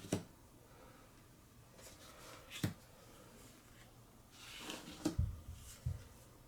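Trading cards being handled and laid out on a table: a few sharp taps, a short rustle about four and a half seconds in, and two low thumps near the end.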